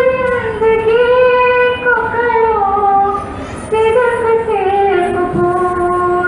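A solo voice chanting an Urdu nazm (devotional poem) without instruments, holding long notes that glide slowly between pitches. There are two long phrases, with a brief breath a little past halfway.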